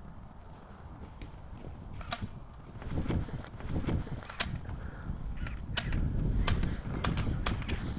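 Airsoft guns firing single shots: sharp pops at irregular intervals, a few in the first half and quicker, closer together from about six seconds in.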